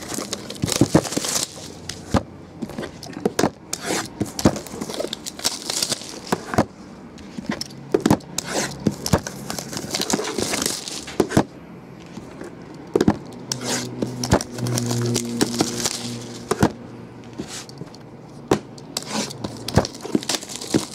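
Plastic shrink wrap on trading-card boxes crinkling and tearing as it is pulled off, with many sharp clicks and knocks of the boxes being handled and set down on a tabletop.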